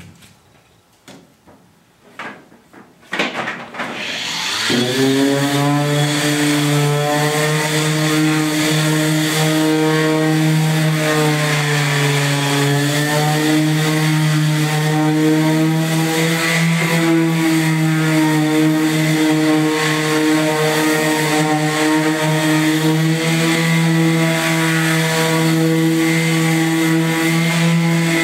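A few light knocks on a pickup truck bed, then a corded electric round-pad sander starts about four seconds in. It spins up and runs steadily, sanding the bed floor, its pitch dipping now and then as it is pressed against the surface.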